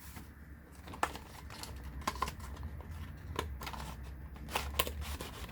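Small packaging being opened and handled: scattered light clicks and crinkles of a box and its wrapping, over a low steady hum.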